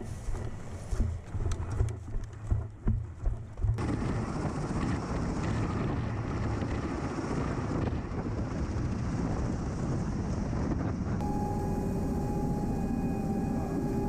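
Uneven low buffeting thumps of wind on the microphone for the first few seconds. Then a sudden switch to the steady loud noise of an MV-22B Osprey tiltrotor. Near the end it becomes the cabin drone, a steady roar with several fixed whining tones.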